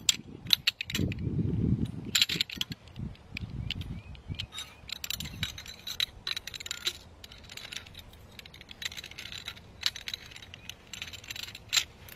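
Metal tubes of a collapsible fire pit frame clinking and rattling against one another as they are pulled apart and bundled together, a run of quick, irregular clicks with a few duller bumps in the first few seconds.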